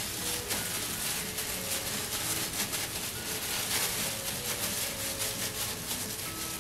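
Thin disposable plastic gloves crinkling and rustling with a continuous fine crackle as hands press and shape a ball of cooked rice.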